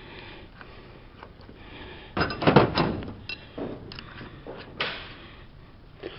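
Small metal parts and screws of a rail bracket being handled and set down during hand assembly. There is a cluster of clattering knocks a little over two seconds in, then a few scattered clicks.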